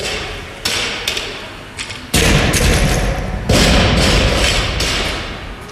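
Loaded barbell hitting the gym floor: a lighter knock under a second in, then a heavy thud about two seconds in and another about a second and a half later, each followed by clattering that dies away.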